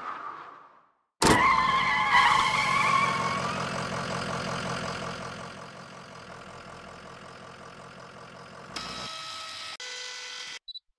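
Cartoon truck engine sound effect, starting suddenly about a second in with a wavering squeal, then running on and slowly fading. A different steady hum takes over near the end.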